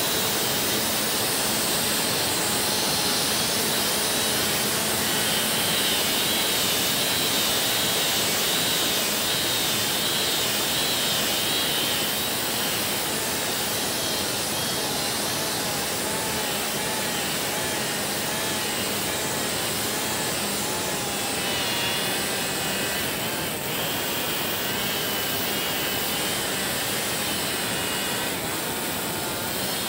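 STIHL MS 382 chainsaw running at full throttle while cutting through a red sandalwood log. The engine note is steady and wavers slightly in pitch under load.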